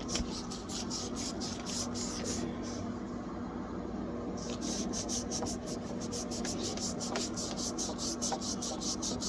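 A cloth scrubbed quickly back and forth over a refrigerator's rubber door seal, in fast strokes several a second, easing off briefly partway through. A steady low hum runs underneath.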